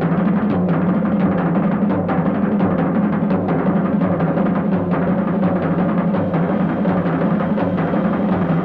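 Dramatic orchestral film score driven by rapid, pounding timpani and drums over a steady low drone.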